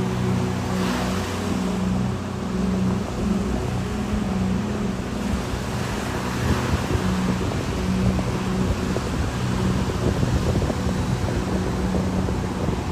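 Ocean surf and wind buffeting the microphone, growing gustier about halfway through, over a steady low humming drone.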